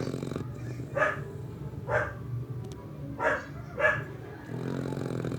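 Dog barking: four short, sharp barks a second or less apart, over a low continuous rumble that swells near the start and the end.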